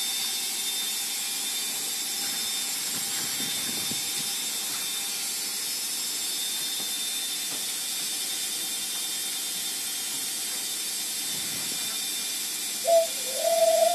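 Steady hiss with a faint high-pitched whine, and about a second before the end a bird's cooing call begins, wavering and falling.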